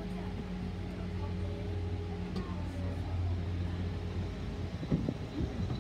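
Narrow-gauge passenger train running along the track, heard from an open carriage window: a steady low rumble and hum from the wheels and carriage, with a few light clicks and a louder, rougher stretch near the end.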